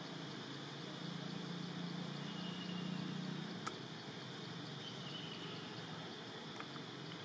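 Steady outdoor background noise: a low hum under an even high-pitched drone, with a single sharp click about three and a half seconds in.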